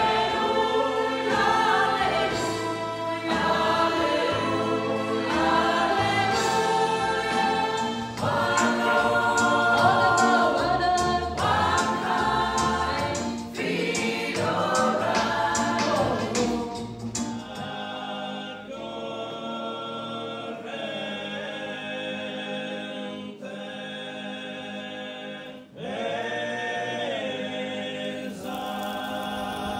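A mixed choir of men and women singing a sacred song in a church, several voices holding pitches together. About eighteen seconds in, the sound changes abruptly to a duller, narrower-sounding stretch of singing.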